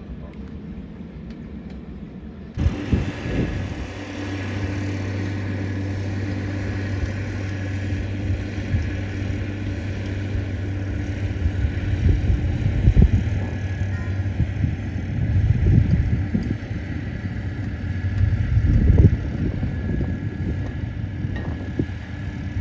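A motor vehicle's engine running steadily, starting suddenly about two and a half seconds in, with irregular low rumbles over it.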